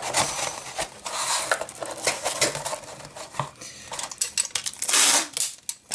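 Hand packing noises: irregular clicks, taps and light clatter as items are handled and fitted into a cardboard shipping box, with a louder rustling scrape about five seconds in.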